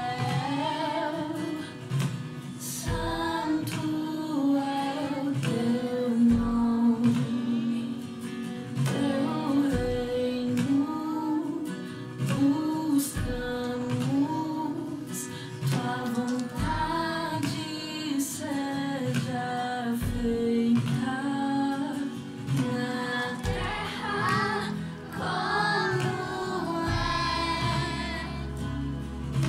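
Children's choir singing a worship song with guitar accompaniment, a low beat falling about every three and a half seconds.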